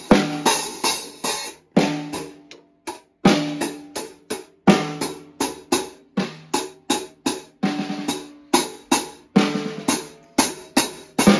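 Junior drum kit played hard and unevenly: quick irregular hits on the toms and snare, each ringing briefly, with cymbal crashes over them.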